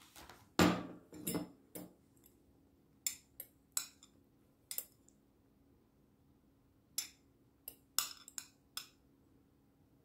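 A metal fork clinking and scraping against a glass bowl of black olives: about a dozen light, scattered clinks, with the loudest knock about half a second in.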